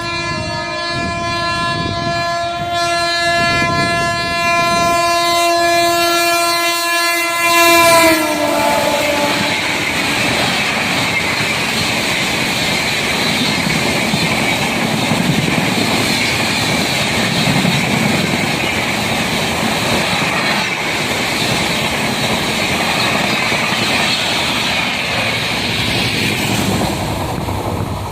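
A passing express train's locomotive horn held in one long steady note, dropping in pitch about eight seconds in as the locomotive goes by. Then the rushing and wheel clatter of the coaches speeding past, fading near the end.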